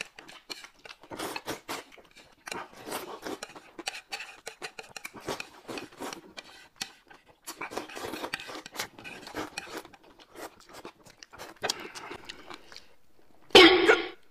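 Close-miked eating: noodles slurped and shovelled off a plate with chopsticks, and chewed, in a quick irregular run of wet clicks, smacks and rasps. A short, louder burst comes near the end.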